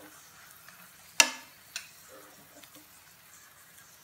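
A steel spatula clinks sharply against the frying pan about a second in and again, more lightly, just after, over a faint sizzle of the filled pathiri frying.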